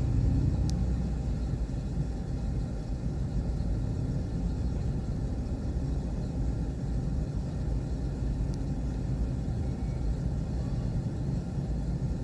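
Excavator's diesel engine running steadily, a low rumble.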